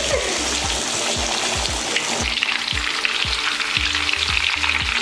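A whole masala-coated river fish deep-frying in a kadai of hot oil, sizzling steadily.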